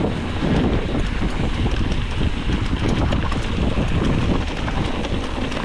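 Wind buffeting the microphone over the clatter of a mountain bike descending a rough trail, with a steady rush of noise and a constant run of small knocks and rattles.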